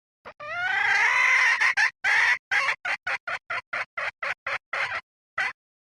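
Red junglefowl hen giving a lure call, as used as a decoy to draw in wild cocks. It opens with a drawn-out call that bends in pitch, then breaks into a rapid run of short clucks, about four or five a second, that stop suddenly.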